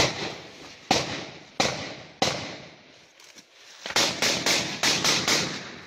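Rifle gunfire: four single shots in the first two seconds or so, then a quick string of about seven shots starting about four seconds in, each shot trailing off in an echo.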